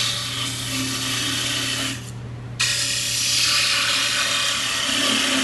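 Sandpaper hissing against the outside of a wooden box spinning on a small variable-speed lathe, over the lathe motor's steady hum. The hiss breaks off briefly about two seconds in, then resumes.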